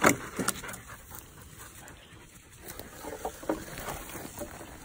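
Hunting hound panting and moving through dry scrub, with a couple of sharp knocks near the start.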